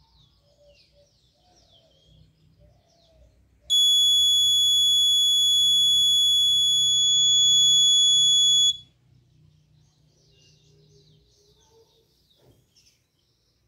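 Piezo buzzer of an Arduino-driven automatic school bell sounding one steady high-pitched tone for about five seconds, starting about four seconds in and cutting off sharply: the seventh scheduled bell, set off by the DS3231 real-time clock at the minute mark.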